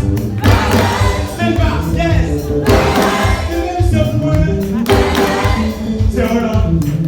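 Gospel choir singing in sustained phrases over band accompaniment with a steady, pulsing bass.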